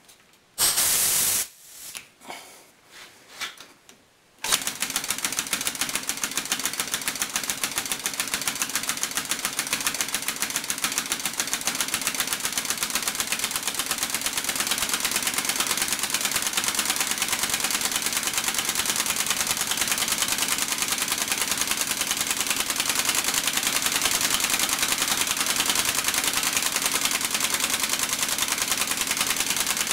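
Chainsaw two-stroke engine converted to run on compressed air. After a few short hisses of air in the first seconds, it starts about four and a half seconds in and runs steadily, with a rapid, even chatter of exhaust puffs.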